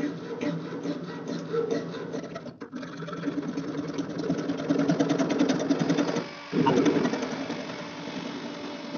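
A blue PVC union nut on a ball valve being screwed by hand: the plastic threads give a rapid, continuous rasping tick, louder in the second half. A steady low hum runs underneath.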